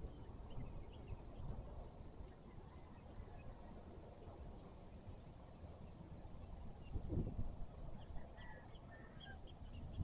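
Steady high-pitched insect drone from the field, with a few faint bird chirps near the end and a low gust of wind on the microphone about seven seconds in.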